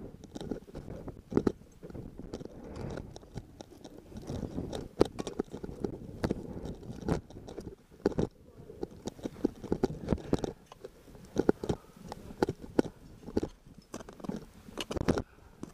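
Crampon-shod boots crunching and scraping into snow and rock, step by step, in an irregular run of crunches, with the ice axe shaft being planted in the snow.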